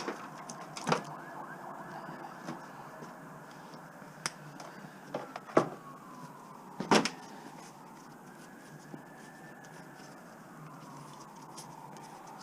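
Emergency vehicle siren wailing, its pitch slowly rising and falling over several seconds, with a few sharp clicks and knocks of scrap being handled.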